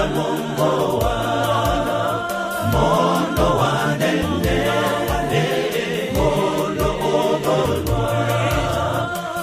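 Male gospel choir singing in harmony over a steady beat with repeated bass notes.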